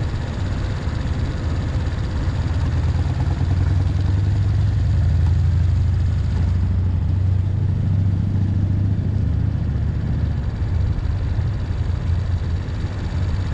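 Motorbike engines idling while stopped in traffic: a steady low hum over street noise, which swells a little around the middle.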